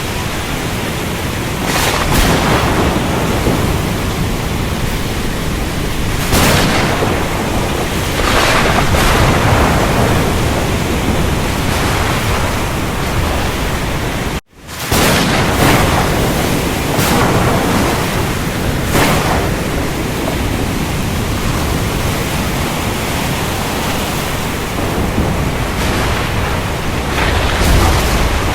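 Steady heavy rain with several sharp cracks of thunder breaking through it. The sound cuts out for an instant about halfway through, then resumes.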